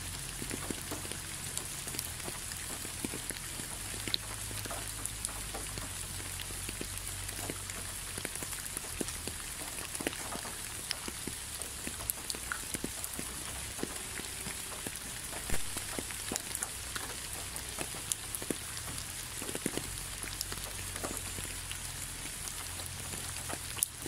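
Steady rain falling, with many separate drops ticking sharply close by and one louder drop a little past the middle.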